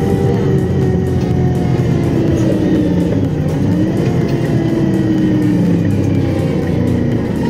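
Iveco Streetway 12 m city bus driving, heard from inside the passenger cabin: the engine rumble carries a drivetrain whine whose pitch slides down, rises again about halfway through, then falls again near the end as road speed changes.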